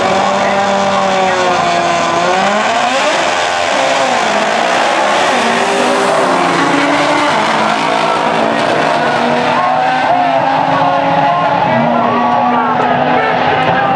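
Turbocharged V6 GMC Syclone pickup making a drag-strip pass at full throttle, alongside a car in the other lane. The engine pitch drops and climbs again a few seconds in, then holds high.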